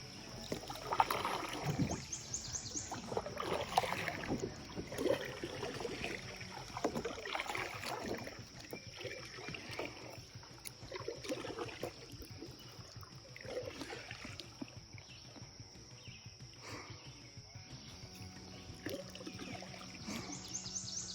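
Kayak paddle dipping and pulling through creek water in a run of irregular strokes, more frequent in the first half and thinning out later.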